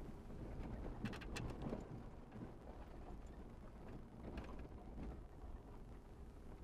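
Vehicle driving slowly over a rough, rutted dirt trail, heard from inside the cab: a steady low rumble with clusters of rattles and knocks about a second in and again around four seconds, as the truck jolts over the bumps.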